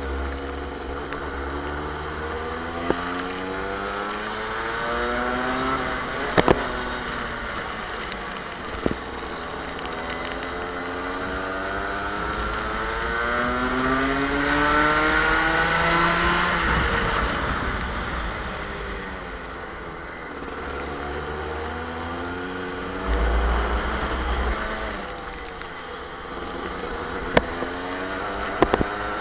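Rotax two-stroke kart engine heard onboard, revving up in pitch along each straight and dropping back into each corner, several times over. A few sharp knocks break in along the way.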